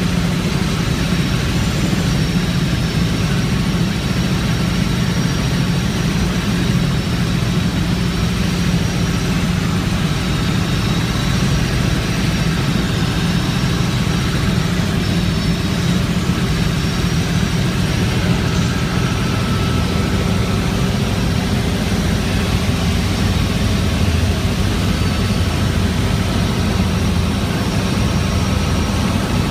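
Helicopter in flight: the engine and rotor run with a steady, unbroken drone and a faint high whine above it.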